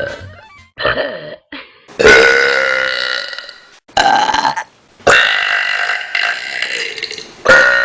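A person belching loudly over and over: a couple of short burps about a second in, then long, drawn-out, voiced belches starting about two and five seconds in, with a short one between them and another beginning near the end.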